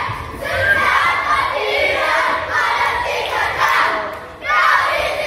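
A crowd of children shouting and chanting together. The noise drops briefly about four seconds in, then comes back loud.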